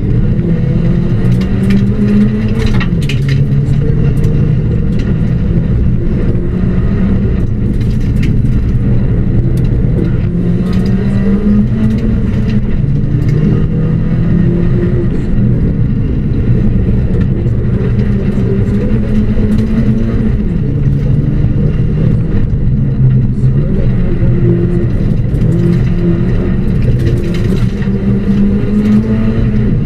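Ford Puma rally car's engine driven hard, heard from inside the cabin. Its pitch climbs and drops again and again with the throttle and gear changes. Scattered short clicks and knocks come through the car body.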